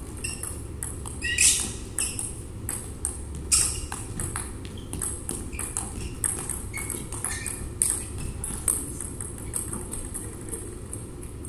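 Table tennis rally: a celluloid-type ball clicking sharply off paddles and the table in quick irregular succession, with sports shoes squeaking on the court floor, loudest about one and a half and three and a half seconds in.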